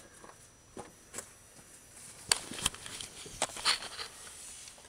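A handful of short, sharp clicks and knocks at uneven intervals, from hands handling tools and parts at a spark plug hole on the engine.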